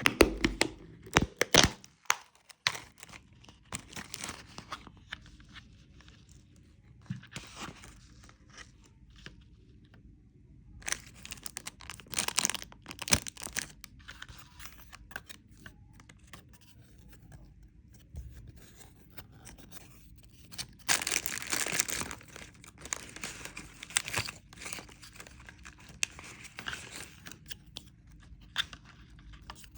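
Candy packaging being torn open and crinkled, in irregular bursts of crackling with sharp clicks and taps, the loudest bursts right at the start and again about two-thirds of the way through.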